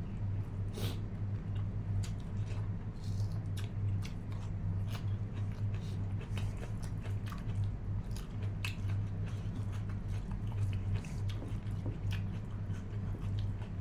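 Close-miked chewing and biting of food, with many short wet mouth clicks, over a steady low hum.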